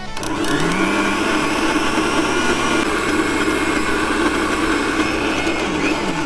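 Countertop smoothie blender running at speed, its blade chopping basil, pine nuts, parmesan, garlic and olive oil into pesto. The motor runs up in pitch in the first second and winds down near the end.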